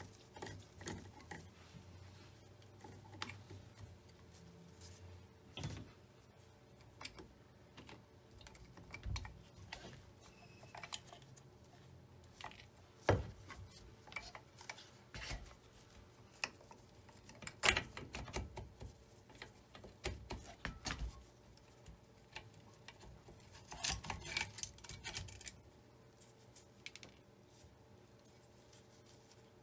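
Scattered clicks, taps and knocks of small metal parts and a screwdriver as a Singer Featherweight 221 sewing machine is unscrewed and taken apart by hand. Two sharper knocks come midway, and a short burst of clatter comes late on.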